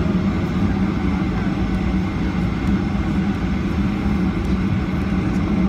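Boeing 737-800's CFM56 turbofan engines running at taxi idle, heard from inside the cabin: a steady low drone with a hum.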